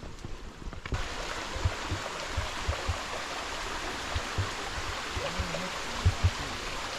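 Running water in a stream, a steady rushing that starts abruptly about a second in, with a few short low thumps now and then.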